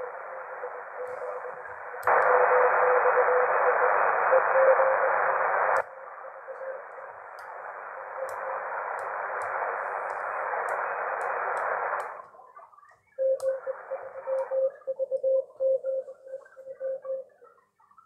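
Shortwave receiver hiss from the Icom IC-R71E's speaker with a steady low-pitched beat tone of a signal under it, louder for a few seconds about two seconds in. About twelve seconds in the hiss is cut away by the bhi NEIM1031 DSP noise canceller, leaving the tone keyed on and off in short irregular beeps like Morse code.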